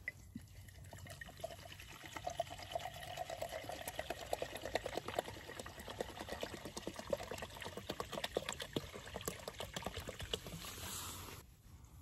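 Water poured from a plastic bottle into a cooking pot: a steady splashing stream with many rapid small gurgles, stopping about a second before the end.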